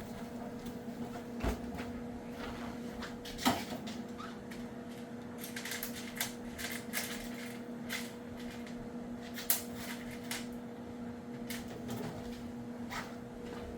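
Scattered clicks and knocks of tools and parts being handled in a workshop, the sharpest about a third of the way in and again about two-thirds in, over a steady low electrical hum.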